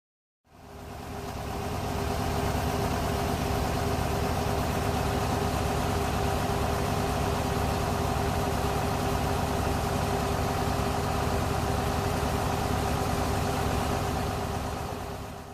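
Diesel engine idling steadily. It fades in about half a second in and fades out at the end.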